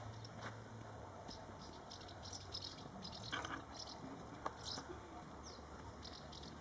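Faint outdoor background: scattered short high chirps and ticks over a low steady hum.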